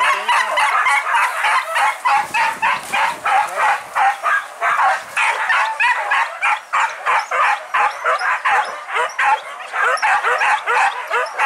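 Hunting dogs on a boar hunt barking and yelping excitedly, a rapid unbroken string of overlapping yelps at about three or four a second.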